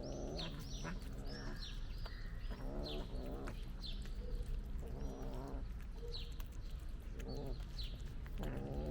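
A cat making low, drawn-out murmuring sounds while eating wet pate, five times over, with birds chirping repeatedly in the background.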